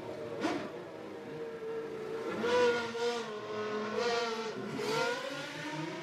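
Formula One cars' V10 engines running, with one car passing quickly about half a second in and three short bursts of revving later on.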